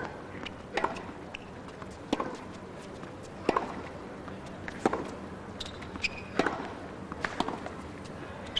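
Tennis rally on a hard court: sharp racket strikes and ball bounces about every second and a half, with a few short high squeaks between them.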